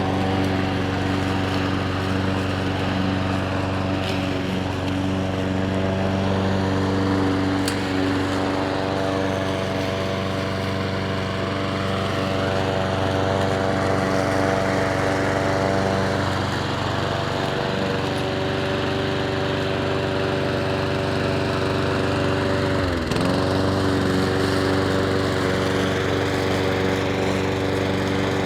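Petrol lawn mower engine running steadily at constant speed. About 23 seconds in it briefly drops in pitch and picks straight back up.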